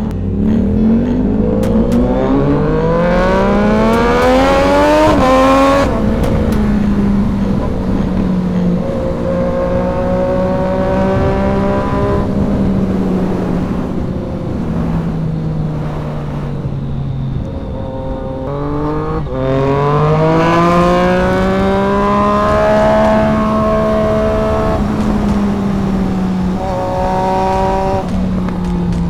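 Sport motorcycle engine under way. It revs up hard for about five seconds, drops as the throttle comes off and holds a steady cruise. Around the middle it slows to a lower drone, then pulls up again and cruises.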